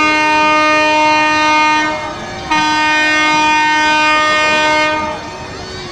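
A boat's horn sounding two long, steady blasts. The first blast stops about two seconds in, and the second starts half a second later and runs for about two and a half seconds.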